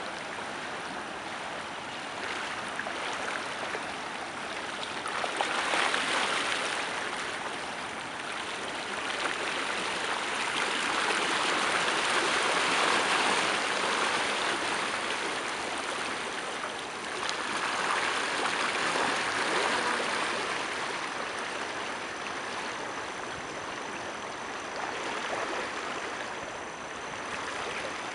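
Rushing water of the fast-flowing Ganges, a steady hiss that swells louder several times and then eases back.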